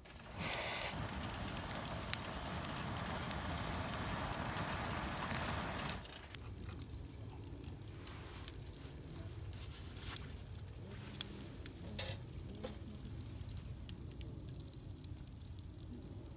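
Food sizzling in a pan over a wood fire for about six seconds, then the sizzle cuts off suddenly. After that, a quieter crackling fire with scattered pops.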